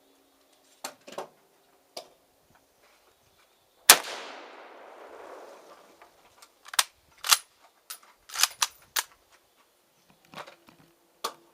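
Gunfire at a shooting range: one loud gunshot about four seconds in, its echo fading over about two seconds, among a dozen quieter sharp cracks spread through the rest.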